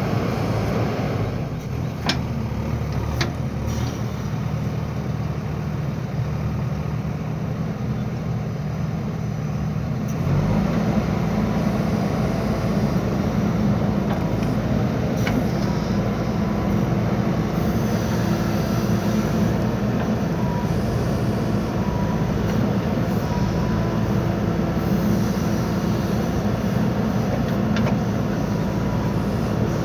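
JCB backhoe loader's diesel engine running steadily, working harder and louder from about ten seconds in, with a few sharp knocks.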